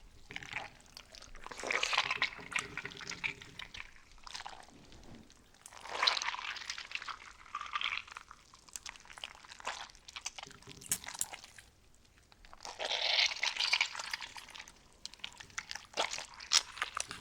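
Slime being squeezed and worked by hand: surges of dense clicking and popping every few seconds, with scattered single clicks between.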